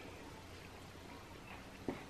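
Quiet chewing over a steady low room hum, with one short soft click near the end.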